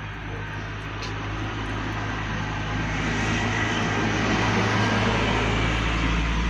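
A vehicle passing: a broad engine-and-rushing noise with a steady low hum underneath, swelling over several seconds to its loudest near the end.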